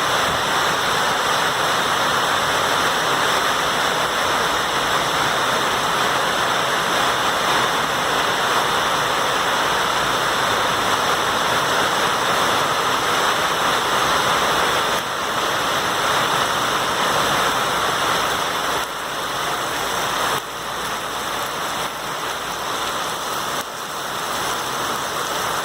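Steady heavy rain, a dense even hiss of falling water that eases slightly in a few steps over the second half.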